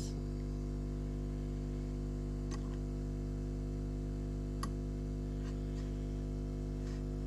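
Hot air rework station running, a steady even hum, with a few faint clicks about two and a half, four and a half and five and a half seconds in.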